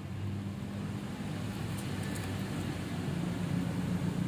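Steady low mechanical hum, with a few faint clicks about two seconds in.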